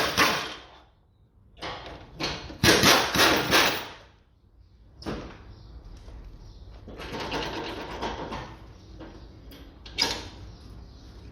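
Cordless impact wrench run in several short bursts, hammering loose engine-mount bolts, the longest burst about a second long.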